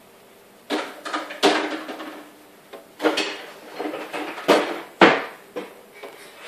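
Knocks and clattering bumps of hard objects being handled close by, about half a dozen at irregular intervals, the loudest about one and a half and five seconds in.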